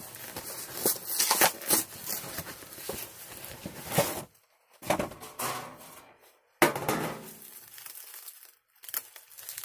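A cardboard frozen-pizza box being torn open and the pizza's plastic wrapping crinkled off. Irregular crackling and tearing in short spells with brief pauses.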